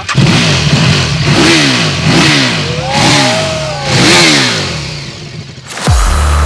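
KTM RC8R's 1190 V-twin engine, just started and revved in a series of sharp throttle blips, rising and falling in pitch about four times. Electronic dance music cuts in near the end.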